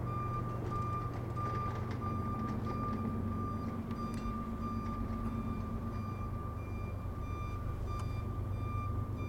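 Railroad crossing warning bell ringing steadily, an electronic tone with evenly repeating strikes, while the crossing gates are down for an approaching train. A steady low engine drone runs underneath.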